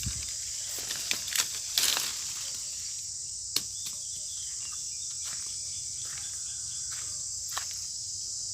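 Steady high-pitched chorus of insects, with a few short rustles and snaps in between; the loudest come about two seconds in and about three and a half seconds in.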